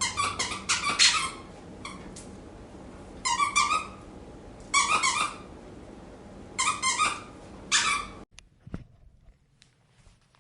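Squeaky dog toy squeezed repeatedly, giving short clusters of quick high-pitched squeaks a second or two apart. The squeezing stops about eight seconds in.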